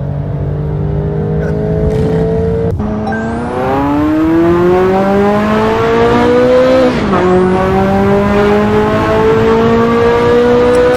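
Ferrari F40 twin-turbo V8 accelerating hard: revs climb steadily, fall sharply at an upshift, then climb again. Before it, another car's engine holds steady revs and is cut off abruptly about three seconds in.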